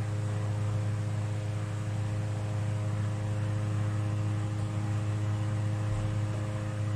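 Kitchen exhaust fan running: a steady low hum with a few higher steady tones over a soft, even whir.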